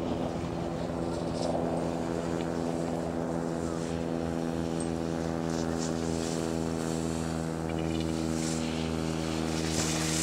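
A steady, low mechanical hum with many overtones, holding one unchanging pitch and level throughout.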